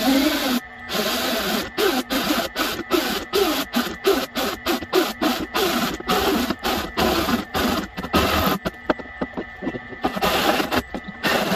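Cordless drill driving a large hole saw with a pilot bit through the sheet-metal wall of a cargo trailer. The saw teeth grind and chatter against the metal, and the sound stops and starts many times in quick short pulses.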